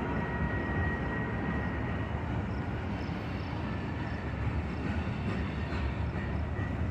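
Union Pacific manifest freight train cars rolling past: a steady rumble of wheels on the rails, with a faint high steady tone above it.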